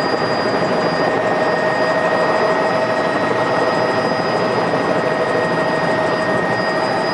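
Tour helicopter in flight: steady, loud engine and rotor noise with a steady high whine running through it.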